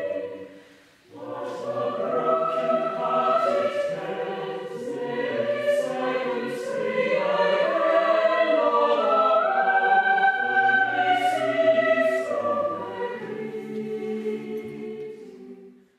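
A choir singing in held chords. It starts about a second in and fades out near the end.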